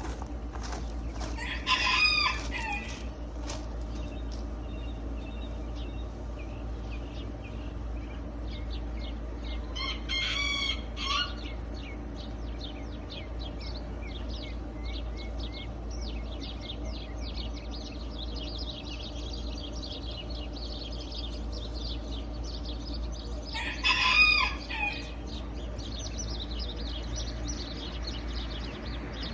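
A rooster crows three times, each crow about a second long and spaced well apart. Small songbirds chirp continuously behind it.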